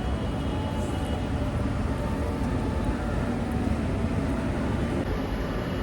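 A vehicle running steadily, with an even rumble of engine and road or wind noise.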